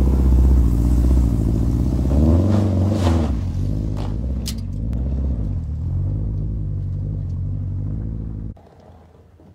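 Lifted Subaru Outback's engine and exhaust under load as it drives up a dirt hill, the revs rising a couple of seconds in, with a few sharp ticks around three to four seconds in. The sound cuts off abruptly near the end.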